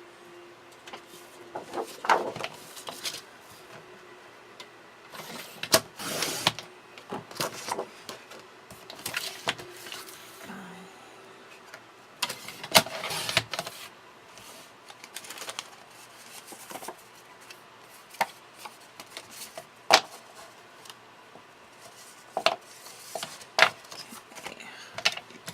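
Black cardstock being cut and handled on a craft table: irregular sharp clicks and taps with short rustling scrapes of paper. A faint steady hum runs underneath for the first ten seconds or so.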